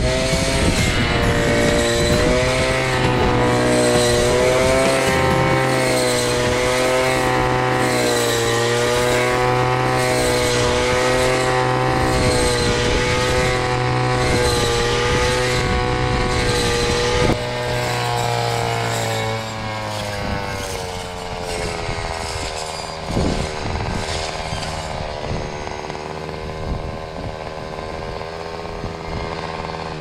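Small two-stroke petrol engine running hard, its pitch wavering up and down as the load changes, then running a little quieter and steadier over the last third.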